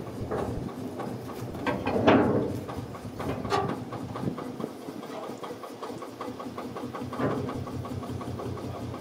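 A locomotive engine running with an even, rapid beat, and a louder clatter about two seconds in.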